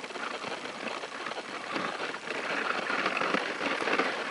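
Dog sled moving over snow: a steady hiss and scrape from the runners, a little louder from about two seconds in.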